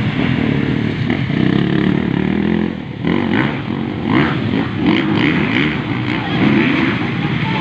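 Several motocross bikes racing, their engines revving hard with pitch rising and falling over one another as the riders accelerate and shift. The sound dips briefly about three seconds in, then swells again as the bikes come closer.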